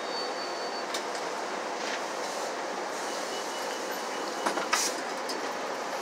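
Steady cabin noise inside a transit bus, the engine and road noise of the ride, with a few short knocks about four and a half seconds in.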